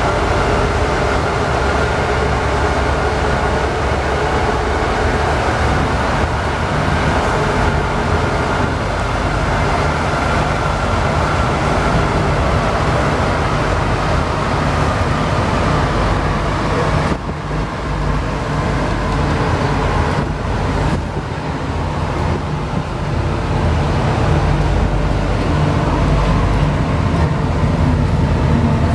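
Alstom NS-93 rubber-tyred metro train running, heard from inside the car: a steady rumble with a motor whine that slowly falls in pitch. The sound dips a little over halfway through and then builds again near the end.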